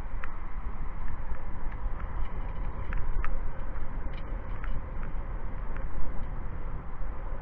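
Wind buffeting the microphone in a steady low rumble, with a few sharp ticks scattered through it.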